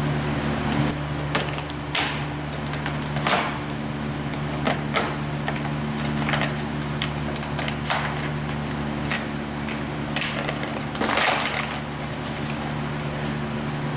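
Plastic bag crinkling and cardboard packing rustling as a new A/C compressor is unwrapped, in irregular bursts with the loudest about eleven seconds in, over a steady low hum.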